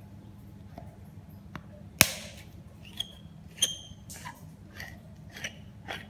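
A sharp click about two seconds in, then a string of short high-pitched squeaks and clicks as the metal shower head is twisted on its threaded arm.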